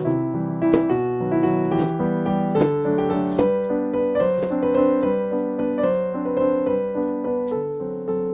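Background piano music, a melody of notes changing every half second or so.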